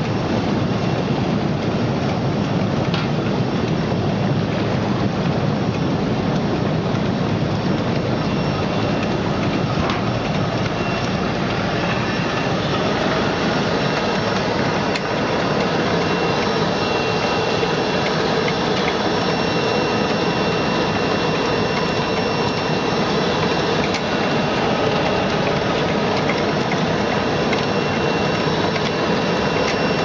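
Commercial bubble-type fish and vegetable washing machine running: water churning and spraying in the stainless tank as a steady rushing hiss. Partway through, the machine's gear-motor-driven mesh roller is also heard, adding a steady thin whine over the water noise.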